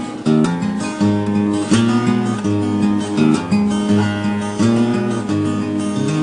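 Acoustic guitar music, strummed chords changing about every second.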